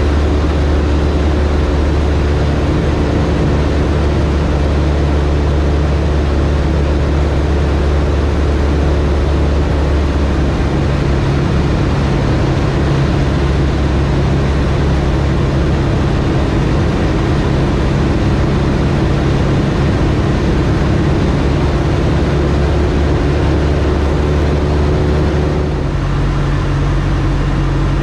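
Cub light plane's piston engine and propeller running steadily in flight, heard from the cockpit. The engine note shifts about ten seconds in. Near the end it changes again and gets slightly quieter.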